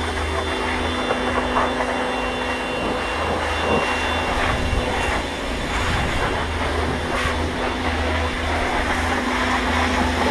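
Pressure washer running steadily: an even motor hum under the hiss of the water jet spraying into the car's engine bay.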